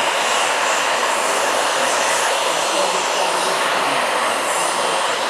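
Steady, loud hiss of steam, typical of a steam locomotive standing at the platform and blowing off steam.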